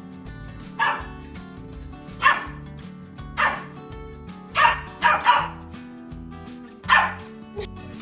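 A dog barking seven times at uneven intervals, three of them in quick succession about five seconds in, over background music.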